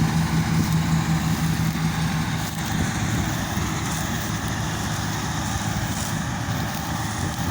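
Combine harvester running as it cuts wheat: a steady engine drone with a clear hum that fades out about two seconds in.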